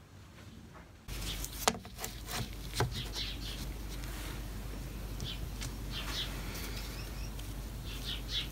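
Gloved hands setting linocut blocks on a printing press bed: two sharp knocks and light scrapes and rustles over a steady low hum, starting about a second in.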